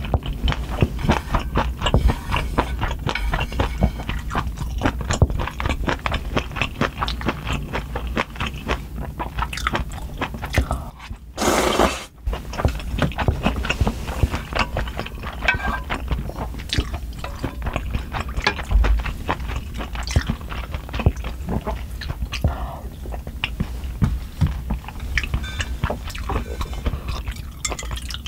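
Close-miked chewing of spicy soupy noodles, a steady stream of wet clicks and smacks, with one brief loud rushing noise about halfway through.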